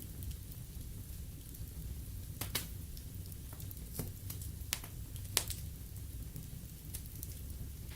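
Wood fire burning in a fireplace: a steady low rumble with several sharp crackles and pops, the loudest about five and a half seconds in.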